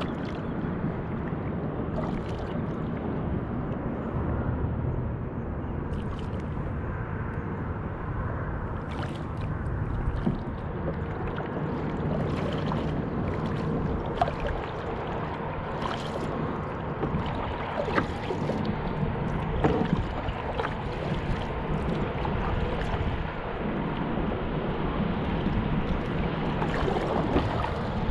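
Lake water lapping and slapping against a moving kayak's hull in a steady rush, with scattered small splashes and clicks.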